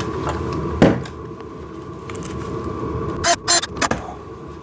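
Handling of assembly parts and a hardware bag: one knock about a second in, then a quick cluster of sharp rustles or clinks about three and a half seconds in, over a steady background hum.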